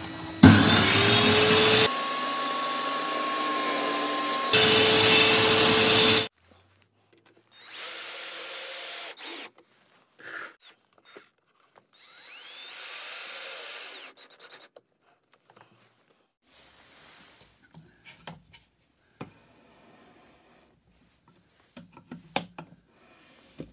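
A homemade table saw's motor starts up, its whine rising, and runs for about six seconds. Then a cordless drill drives screws into wood in two short runs, the second whine rising and falling. Near the end there are only faint taps and rubs of hand work.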